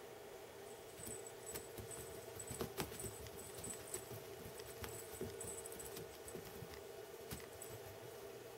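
A cat's paws pattering, thumping and scrabbling on carpet as it pounces after a laser dot, with scattered light clicks and jingles that are busiest in the first two-thirds, over a steady low hum.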